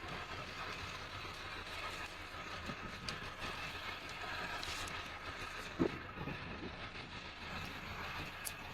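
A vehicle driving, with steady road noise and one short knock about six seconds in.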